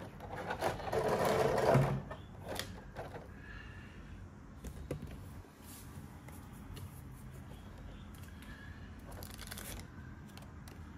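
Crinkling and rustling of a clear plastic blister tray as the action figure is handled in it, loudest for the first two seconds. After that, a few soft clicks and taps of plastic.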